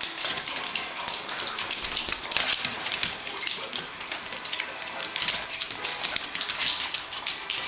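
Rapid, irregular clicking and scrabbling of a small dog's claws on a hardwood floor as it spins round chasing its toy.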